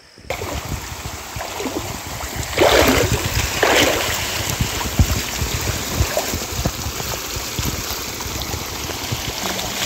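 Water rushing down a narrow concrete overflow channel from a small reservoir tank, a steady rush that swells louder twice, about three and four seconds in.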